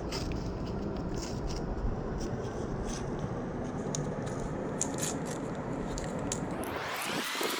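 Close-up crackling and scraping from Mars bars and their wrappers being handled, with scattered sharp crisp clicks.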